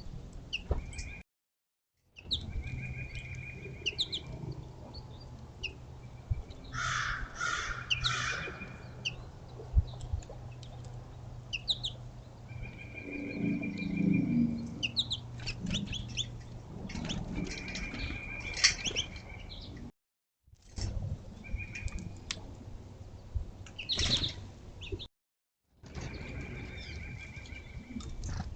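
Small songbirds at a bird feeder: a busy mix of short chirps and calls, with a few drawn-out single-pitch calls and brief wing flutters. The sound cuts out to silence three times for a moment.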